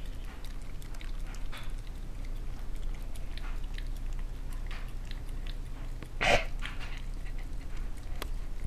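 Small dog licking and smacking its lips on sticky peanut butter: a string of short wet clicks, with one louder smacking sound about six seconds in, over a steady low hum.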